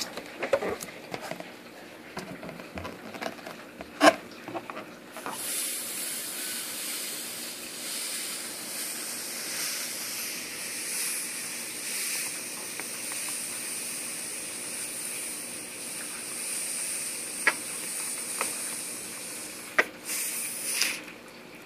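Air hissing steadily out of the neck of an inflated balloon as it deflates and shrinks around a cell phone. The hiss starts about five seconds in, lasts about fifteen seconds, and ends with a short louder burst that cuts off near the end. Before it come light handling clicks and one sharp knock about four seconds in.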